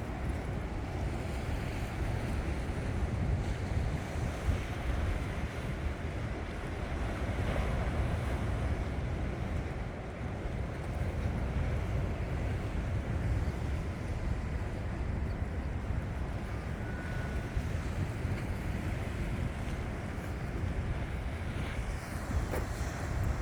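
Wind buffeting the microphone in a steady low rumble, over the continuous wash of sea waves on the shore.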